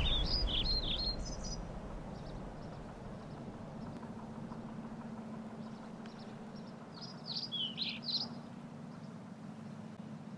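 Small songbirds twittering in quick phrases that slide in pitch, at the start and again about seven to eight seconds in, over a low outdoor rumble that is loudest at the start and fades over the first two seconds.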